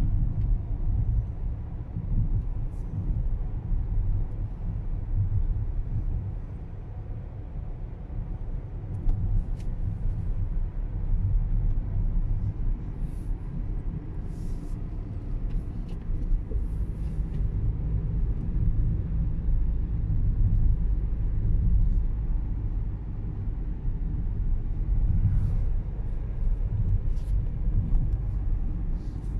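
A car driving along, heard from inside the cabin: a steady low rumble of engine and tyre noise.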